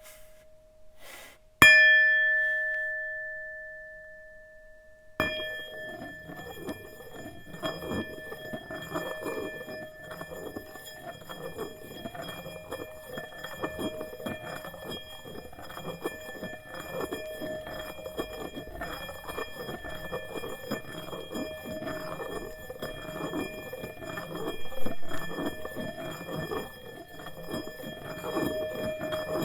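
Tibetan singing bowl struck with a mallet about a second and a half in, ringing with several steady overtones and fading. It is struck again about five seconds in and then kept ringing at an even level, with a faint rubbing texture under the tones, as the mallet is circled around the rim.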